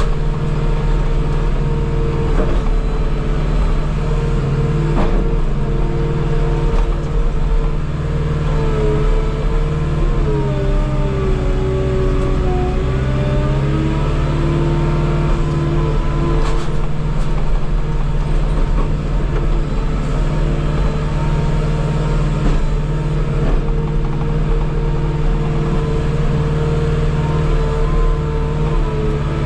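Diesel engine of a tracked skid steer with a telescopic boom running steadily at working revs, its pitch sagging for a few seconds about ten seconds in as it takes load, with a few faint knocks.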